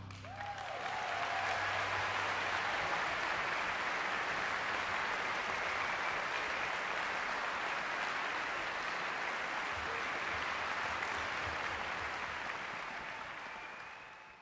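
Audience applauding after an orchestra's final chord, a steady even clapping that builds in the first second and fades out near the end.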